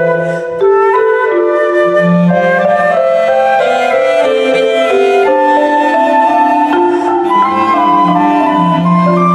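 Chamber trio of concert flute, cello and marimba playing a classical piece: a moving flute line over long, low cello notes, with marimba notes changing quickly.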